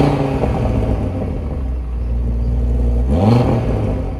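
Cupra Formentor VZ5's 2.5-litre turbocharged five-cylinder engine revved while the car stands still, heard at its exhaust tips. A rev blip at the start falls back to a steady raised running note, and a second quick rev comes about three seconds in.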